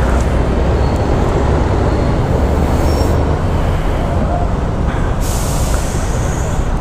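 Steady wind and road noise from a Honda ADV150 scooter under way, wind rushing on the microphone, with bursts of hiss about two seconds in and again about five seconds in.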